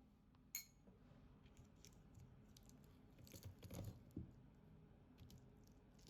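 Faint handling sounds: one bright ringing clink about half a second in, then scattered soft clicks and crackles over a near-silent room.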